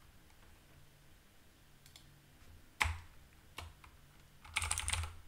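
Typing on a computer keyboard: a few separate keystrokes, then a quick run of keystrokes near the end as an account password is typed in.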